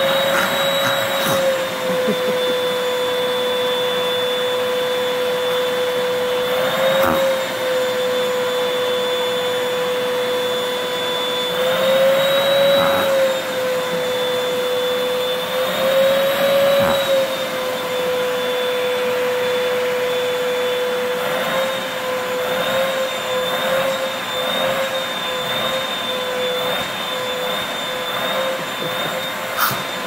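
Vacuum cleaner running with its hose nozzle at a puppy's mouth, the suction making a steady tone over a hiss. The tone rises briefly a few times and wavers unevenly near the end as the puppy's tongue works in the hose.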